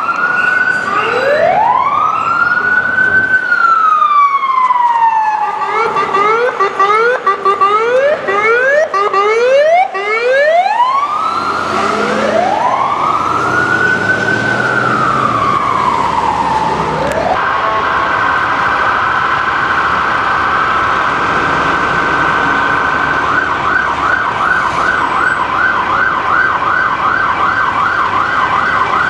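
Ambulance siren changing patterns. A slow wail rises and falls, then a fast yelp sounds from about six to ten seconds in, then a second slow wail, and from just past halfway a rapid warble runs on to the end.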